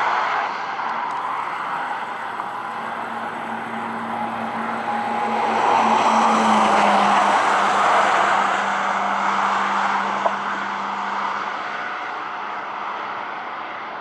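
Vehicle passing by: a broad road noise swells to a peak about seven seconds in, with a hum that drops in pitch as it goes past, then fades to a steady background of traffic.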